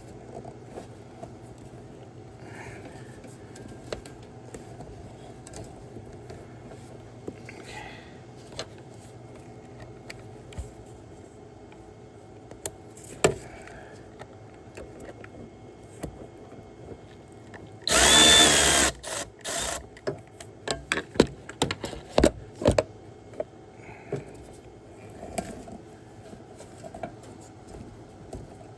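Handheld power drill spinning with a steady whine for about a second, then a few short trigger bursts and a series of sharp metallic clicks and knocks, over a steady low hum.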